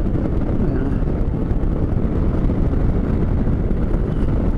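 Scooter underway: steady engine and road noise mixed with wind buffeting the microphone.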